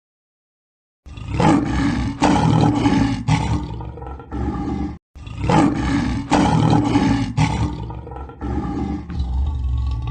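Lion roaring in two loud, rough bouts of about four seconds each, starting about a second in, broken off suddenly between them.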